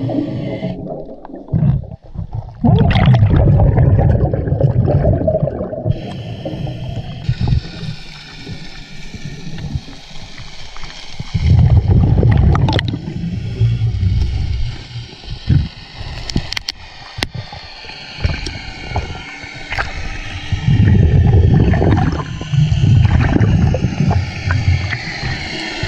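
A scuba diver's exhaled bubbles rumbling past an underwater camera in bursts of about three seconds, roughly every nine seconds, with quieter bubbling and a low hiss between breaths.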